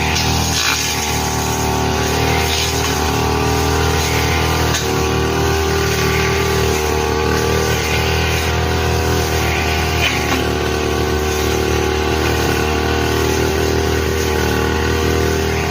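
Brush cutter engine running steadily at high speed while cutting grass, with a brief dip about five seconds in.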